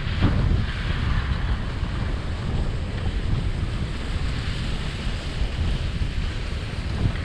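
Wind rumbling on a skier's action-camera microphone during a steady downhill glide, over the hiss of skis sliding on groomed snow. There is a brief knock just after the start and another near the end.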